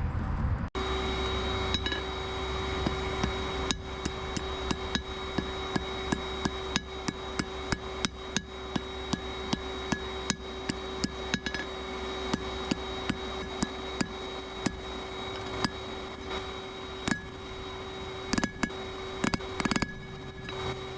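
Blacksmith's hammer striking steel on an anvil in a long, quick run of blows, several a second, over a steady hum and whine.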